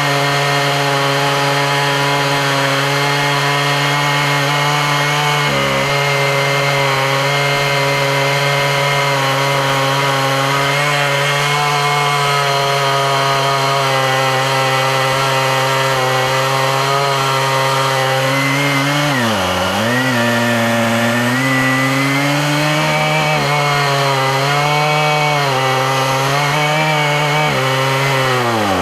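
Stihl MS880 large two-stroke chainsaw running at full throttle while milling lengthwise through oak on an Alaskan chainsaw mill. Its pitch holds steady at first, then wavers and sags sharply twice in the later part as the cut loads the engine.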